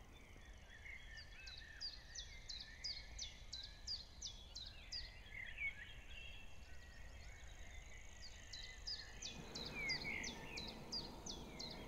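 Bald eagle calling, faint: a run of sharp, high, falling whistled notes about three a second, coming in two bouts, with softer, lower bird chirps beneath.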